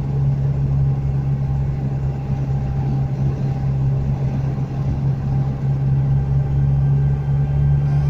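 A car driving along a road: a steady engine and road drone with a constant deep hum, starting abruptly at a cut and holding unchanged.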